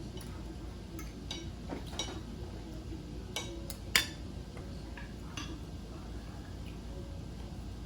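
Scattered light clinks and clicks of cutlery against dishes, with one sharper, louder click about four seconds in, over a steady low background hum.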